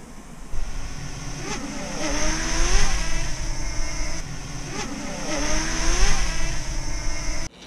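DJI Mini 2 drone's propellers whirring close by, a steady high whine whose pitch rises and falls as it manoeuvres, over a low rumble. It cuts off suddenly near the end.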